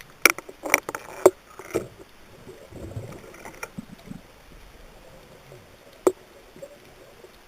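A handful of sharp, slightly ringing knocks and clicks, likely recorded underwater: four in the first two seconds and one more about six seconds in, over a low steady hiss.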